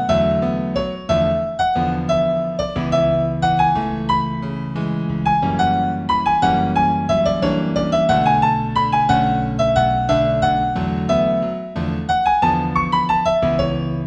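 Solo piano music: a melody of short struck notes rising and falling over a sustained low accompaniment, in A major at tempo 90.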